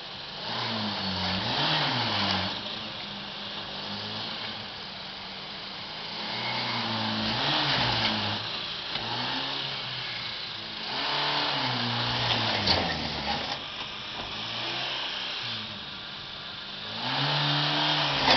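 Suzuki SJ 4x4's engine revving hard under load as it pulls on a tow rope in a tug-of-war, the revs surging up and dropping back about six times.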